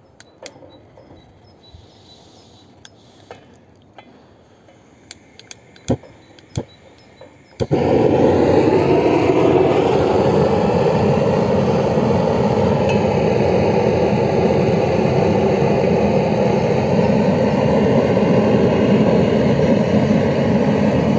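A few sharp clicks, then about eight seconds in a propane gas torch lights and burns with a loud, steady rushing hiss, its gas valve opened too far.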